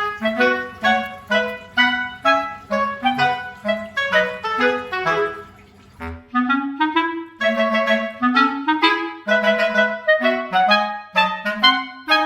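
Background music: a tune of short, bouncy notes at a quick even pace, pausing briefly about six seconds in.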